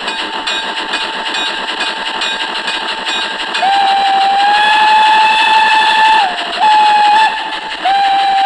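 Steam locomotive whistle blowing three blasts over a steady hiss of steam: a long one from about three and a half seconds in, a short one, and a third starting near the end, each sliding up slightly in pitch as it opens. This is the departure whistle as the train sets off.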